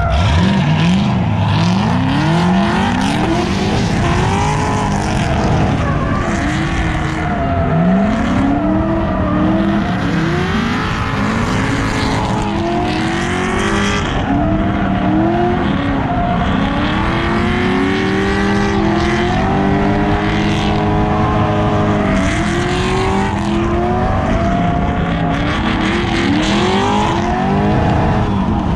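Drifting Corvette's V8 pulling away from the start line with a rising rev, then revving up and down again and again through the drift, with tyre squeal.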